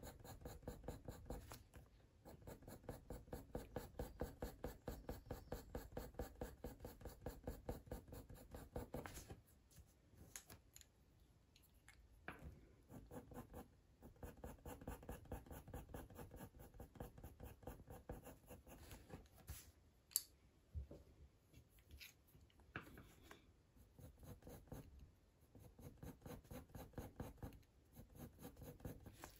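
Faber-Castell Polychromos coloured pencil scratching on hot-press watercolour paper in quick, short shading strokes, about four a second, in several runs with brief pauses between them.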